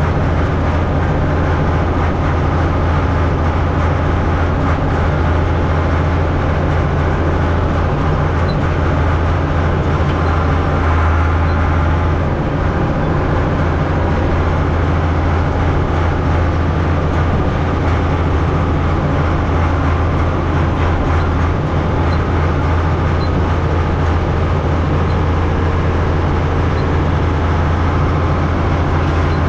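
Vehicle engine running steadily, a loud, even low drone with no breaks.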